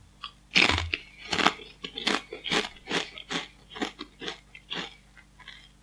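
A person biting into a kettle-cooked potato chip and chewing it, with crisp crunches at about two a second. The first bite, about half a second in, is the loudest, and the crunches grow fainter near the end.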